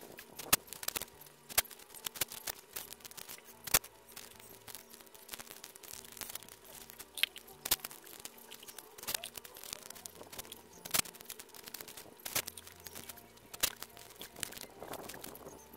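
Paper masking tape being pulled off the roll, torn and pressed around a wheel rim: irregular sharp crackles and tearing sounds, a dozen or so louder snaps among them.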